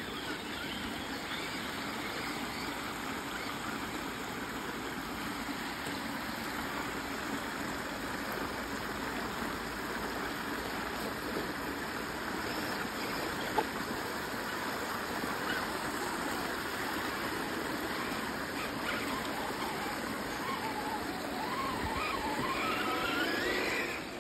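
Steady rush of a small creek spilling over a low bank in shallow cascades. There is a single sharp click about halfway through, and a wavering whine that rises in pitch near the end as the sound gets a little louder.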